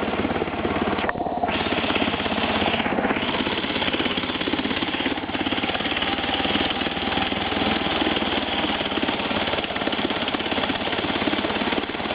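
Vintage 1946 Scott-Atwater (Firestone) 3.5 hp two-stroke outboard motor running steadily with a rapid, even firing beat.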